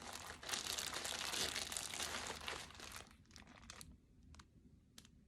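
Packaging crinkling as a skein of yarn is handled, dense for about three seconds, then dying away to a few faint clicks.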